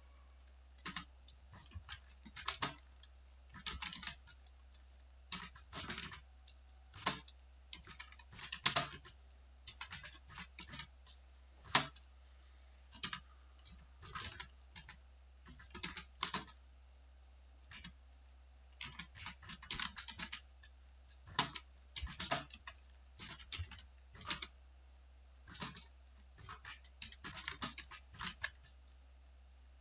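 Computer keyboard being typed on in uneven runs of keystrokes with short pauses between them, over a faint steady low hum.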